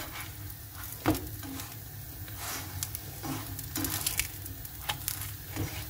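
Folded dough parcels sizzling in a lightly oiled frying pan as they are turned with a silicone spatula, with a few light knocks of the spatula against the pan, the sharpest about a second in.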